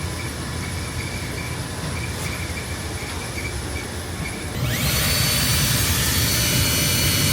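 HVAC air-handling equipment and ductwork running with a steady low rumble. About four and a half seconds in, a loud rush of air comes in with a quick upward sweep in pitch and then holds steady.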